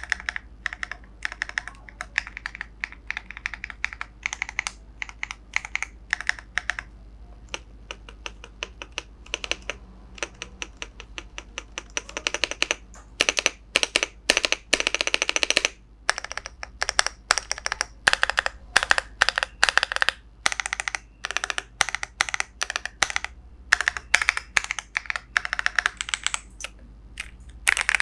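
Typing sound test on an Ajazz AC100 aluminium-bodied mechanical keyboard: runs of rapid key clicks, some fast continuous flurries, broken by short pauses.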